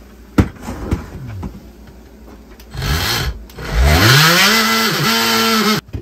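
Handheld cordless power tool cutting into a wall: a knock about half a second in and a short burst around three seconds, then the motor spins up with a rising whine, runs steadily for about two seconds and stops suddenly near the end.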